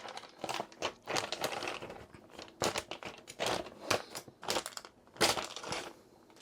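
Packaging crinkling and rustling in irregular handfuls as the drone is unwrapped and lifted out of its box, dying away near the end.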